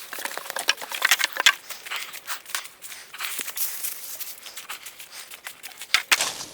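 Dense, irregular rustling and crackling with many sharp clicks: dry material, such as tarp plastic and brush, being handled and shifted.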